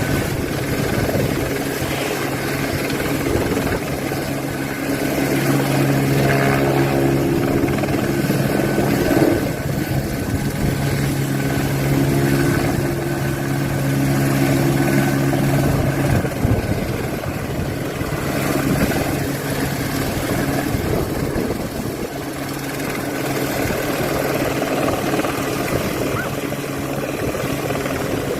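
Helicopter running steadily, a continuous drone of rotor and engine with a steady low hum. It grows louder from about five seconds in and eases off again around sixteen seconds.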